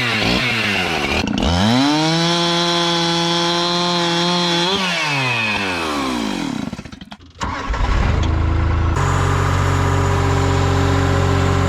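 An engine revs up sharply, holds at high speed for about three seconds, then winds back down. After a brief drop-out, a deeper engine runs steadily at a low, even speed.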